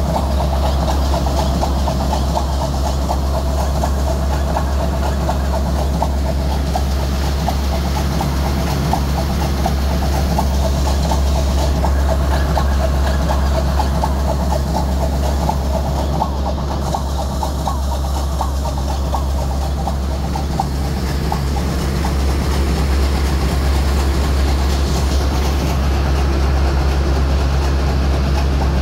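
Ship's engine-room diesel machinery running steadily and loudly: a deep constant hum with a fast, even ticking clatter on top.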